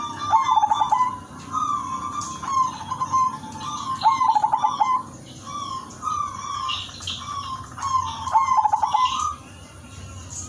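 Zebra dove (perkutut) singing its cooing song: three phrases about four seconds apart, each a quick run of short staccato notes followed by drawn-out coos.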